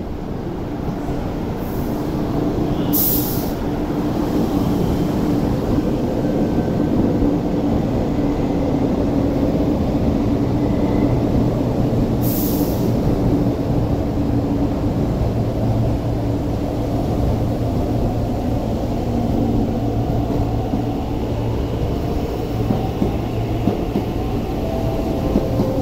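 East Rail Line electric train running at the platform: a steady rumble with a faint low motor hum. There are two short high hisses, about three seconds in and again about twelve seconds in.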